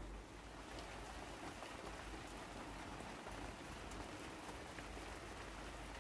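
Rain falling steadily into puddles on a waterlogged path.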